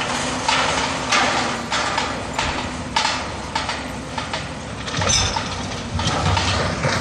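Demolition debris of brick and concrete clattering and knocking down from a building being torn open by a wrecking ball, in sharp irregular knocks about every half second. Under it the crane's engine runs with a steady hum, growing louder about five seconds in.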